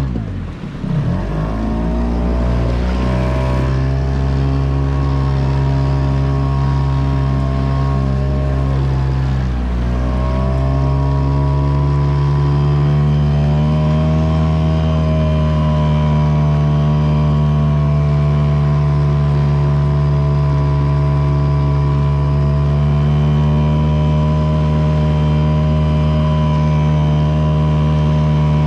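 Yamaha 5-horsepower outboard motor running at full throttle. Its note drops sharply and comes straight back up just after the start, dips briefly again about ten seconds in, then holds steady.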